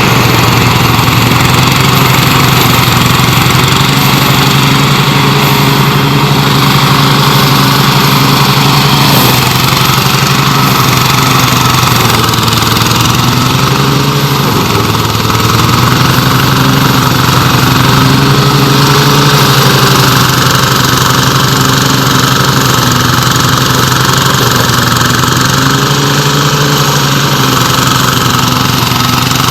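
An engine running steadily, with its pitch sagging briefly a couple of times as it takes on load.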